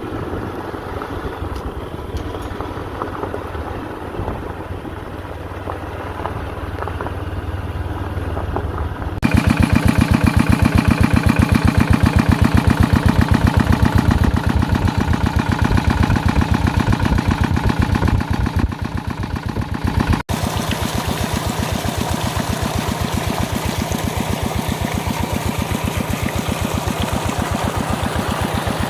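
Small engine driving a water pump runs steadily, draining the pond. About 9 seconds in it becomes suddenly much louder, with each firing stroke heard as an even beat, and it changes abruptly again about 20 seconds in.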